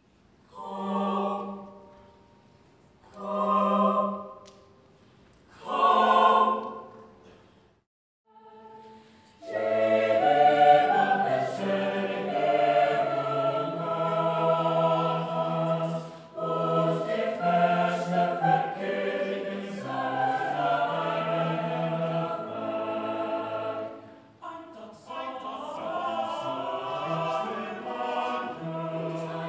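Mixed choir of men's and women's voices singing: three short held chords with pauses between them, then, after a brief silence, continuous part-singing with moving lines. The singing dips briefly about three-quarters of the way through.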